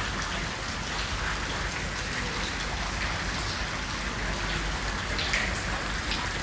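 Heavy rain falling steadily, with individual drops ticking close to the microphone, one a little louder about five seconds in.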